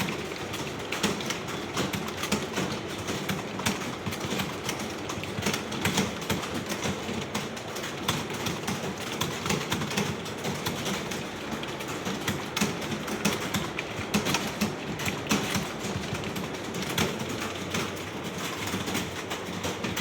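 Many computer keyboards clattering at once: a room full of students typing fast during a timed typing test, a dense, unbroken stream of key clicks.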